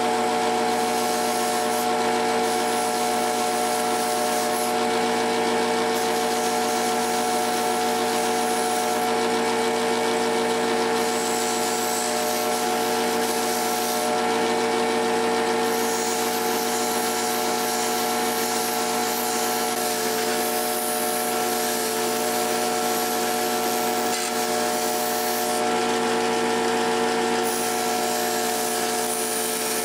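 A power tool's motor running at a steady speed with a constant hum, while a part is worked against it in spells, the higher rubbing hiss coming and going every few seconds.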